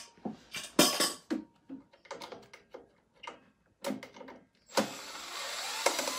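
Knocks and clatter of tools being handled, then about five seconds in a cordless drill-driver runs steadily for under two seconds, backing a screw out of the floor sander's motor cover.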